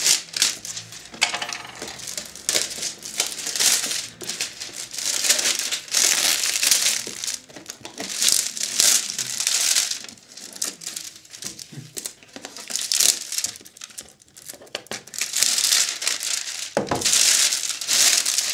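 Clear plastic shrink-wrap being peeled off a cardboard box and crumpled in the hands, crinkling in irregular spells. A single sharp knock near the end.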